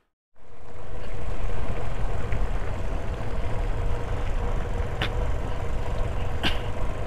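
Motorcycle running on the move, its engine under a steady low rumble of wind on the microphone, with a couple of light clicks near the end.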